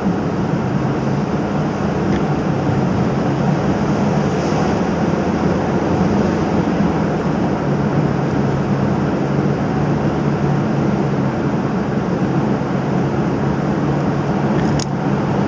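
Steady cabin noise of a Nissan Y50 Fuga 350GT cruising through a road tunnel: its 3.5-litre V6 and low-profile 20-inch tyres make an even hum and road roar, with a faint click near the end.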